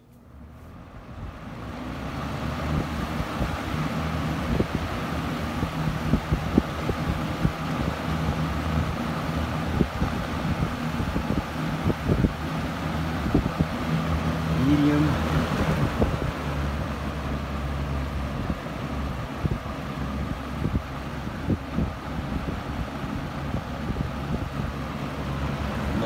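1983 Lakewood P-223/M 20-inch box fan with its McMillan motor switched on to high: it spins up over the first couple of seconds, then runs steadily with a low hum and a rush of moving air. Irregular short thumps run through it.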